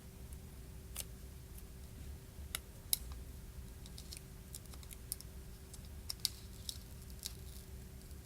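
Faint, irregular small clicks and ticks of small tools and parts being handled during a phone repair.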